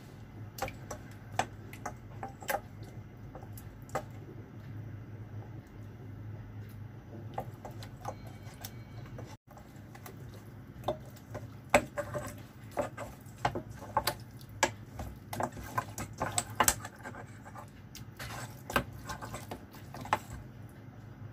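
Irregular sharp clicks and taps of kitchen utensils against dishes, sparse at first and coming thick and fast in the second half, over a steady low hum; the sound drops out for a split second about nine seconds in.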